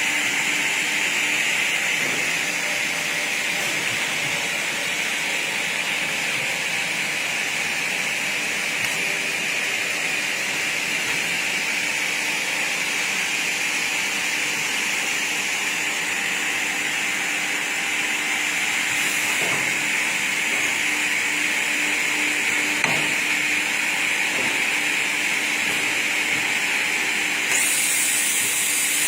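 Double-head aluminium cutting saw machinery running, a constant hissing whirr that brightens slightly near the end.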